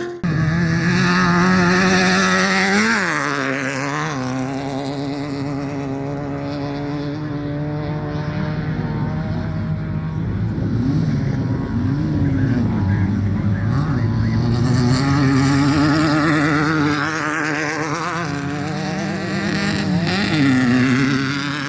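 Off-road race vehicle engine running at high revs. Its pitch dips and climbs several times as the throttle is lifted and reapplied.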